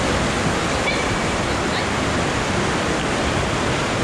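Churning white water in a water slide's run-out pool rushing around a ring tube, a steady unbroken rush.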